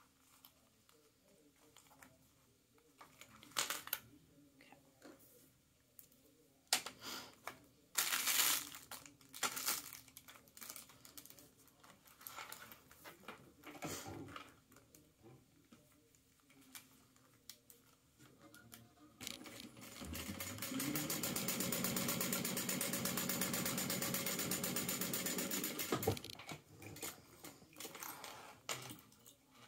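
Sewing machine stitching down a purse lining for about six seconds near the end: it speeds up as it starts, runs at an even pace, then stops abruptly. Before that come scattered clicks and rustles of the clipped fabric piece being handled.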